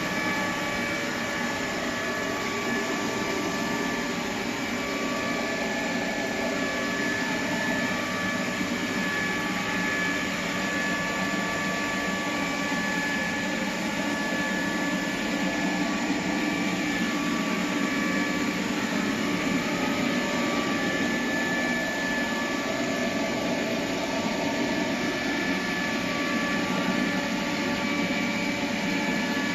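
iClebo O5 robot vacuum cleaner running: a steady suction-motor rush with a thin high whine over it.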